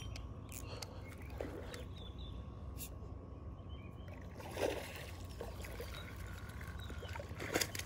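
A hooked peacock bass splashing at the water's surface at the bank's edge as it is reeled in. There are two louder splashes, one about halfway through and one near the end, over a steady low rumble.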